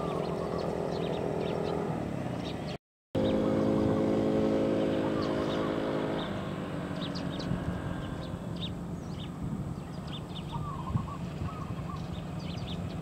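A distant motor engine drones at a steady pitch, louder for a few seconds after a brief cut in the sound about three seconds in, then fades out about six seconds in. Small birds chirp throughout, more clearly once the engine fades.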